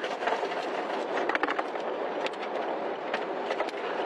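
Steady roar of wind and rain from a nearby tornado, with many irregular sharp hits and taps of things striking close to the microphone.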